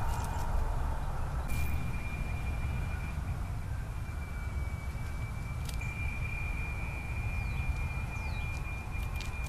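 Outdoor night ambience picked up by a trail camera's microphone: a steady low rumble with a thin continuous high tone, a couple of short rising chirps near the end, and sharp clicks where the clips are joined.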